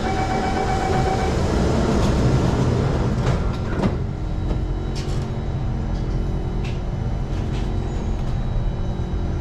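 Singapore MRT train running: a steady rumble with a steady motor tone over it, and a few sharp clicks from about three seconds in.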